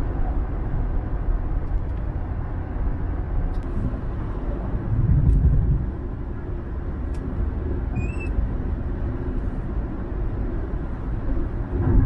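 Steady road and engine rumble heard from inside a car cruising at freeway speed, swelling briefly about five seconds in. A few faint clicks, and one short, faint high chirp a little after the middle.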